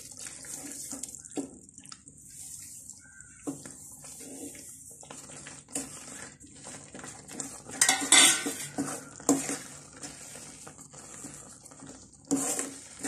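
Wooden spatula scraping and knocking against a steel kadai as semolina is stirred into water and vegetables, thickening into upma. There are irregular scrapes throughout, with louder clatters about eight seconds in and again near the end.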